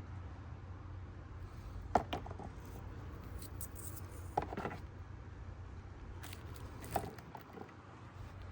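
Three light clicks or knocks, about two to three seconds apart, with faint rustling in between: parts being handled by hand, over a steady low hum.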